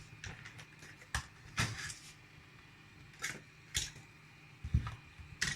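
About six short, light clicks and taps, irregularly spaced, from multimeter test probes being set on the legs of a power supply's MOSFETs during testing, over a faint steady hum.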